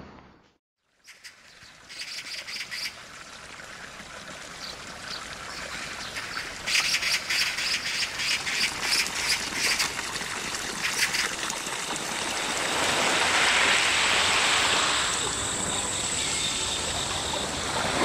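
Outdoor nature ambience: bird chirps over a steady hiss like running water, starting after a moment of silence.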